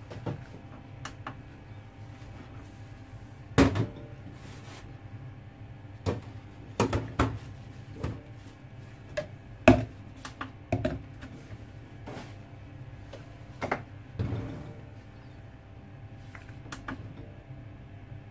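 Scattered knocks and clatter of plastic measuring jugs being handled and set down on a digital kitchen scale, over a steady low hum.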